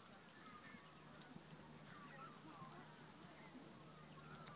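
Faint birdsong: many short chirps and warbles from birds, over a low steady hum that comes in about a second in.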